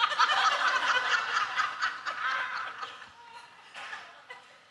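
Congregation laughing at a joke in a church hall, many people chuckling at once, dying away over about three seconds.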